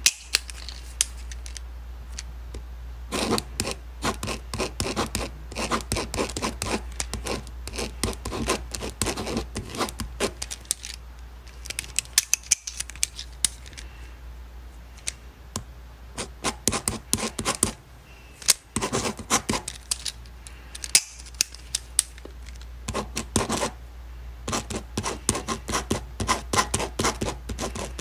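Ballpoint pen writing on paper: quick scratching strokes and taps in bursts with short pauses between them, over a low steady hum.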